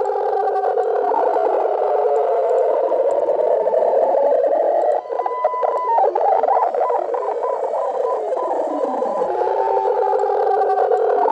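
Electronic drone made of many warbling, wavering tones in a narrow middle band. About five seconds in there is a cluster of clicks and a brief steady beep, and near nine seconds one tone sweeps down.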